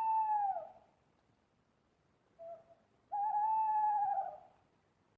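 An owl hooting: one hoot right at the start, a brief short note about two and a half seconds in, then a longer hoot of about a second and a half that wavers slightly in pitch.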